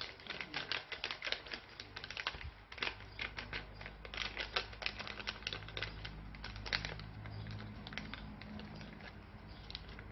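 Slime being worked by hand, giving rapid, irregular sticky clicks and pops that thin out over the last few seconds, over a faint steady low hum.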